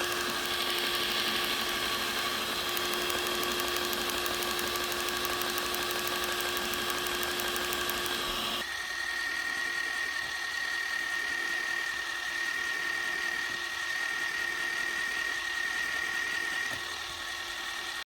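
Traxxas TRX-4 Defender RC crawler's electric motor and drivetrain running with a steady gear whine and a fast ticking, the clicking noise that comes from play in the center gearbox. About eight and a half seconds in, the sound changes abruptly to a quieter, higher-pitched whine.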